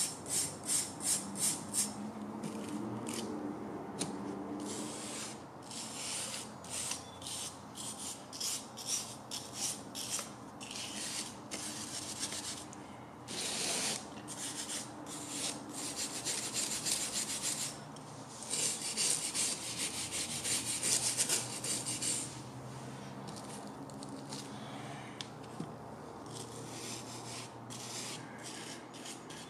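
A wooden stick scraping and paper towel rubbing old paint off the metal base of a Mitutoyo 7003 stand: quick strokes about three a second at the start, then irregular stretches of scraping and wiping.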